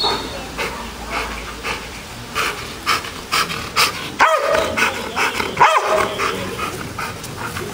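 Belgian Malinois barking repeatedly at a decoy in a bite suit, holding him at bay, with short sharp barks about two or three a second. Two louder, higher barks come about four and six seconds in.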